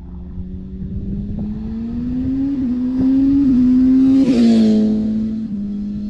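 2009 Kawasaki ZX-6R's inline-four engine accelerating past on the road, its pitch rising and briefly dipping twice as the quick shifter cuts power for upshifts. It is loudest as it passes about four seconds in, then the pitch drops as it moves away.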